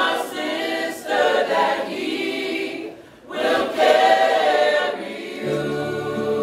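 A group of men, women and children singing together a cappella in phrases, with a short break about three seconds in. Steady low held notes join in near the end.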